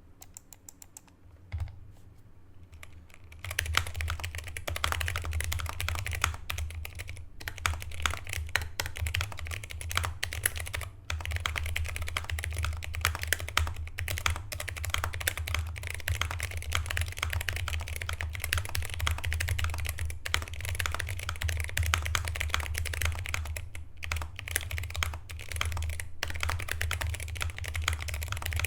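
Fast, continuous typing on a Pojun PJ02 full-size mechanical keyboard with Outemu Brown tactile switches, PBT keycaps, foam dampening and taped, lubed stabilizers. A single key click comes a second or two in, then steady rapid key clatter starts about three and a half seconds in and runs on, with a brief lull near eleven seconds.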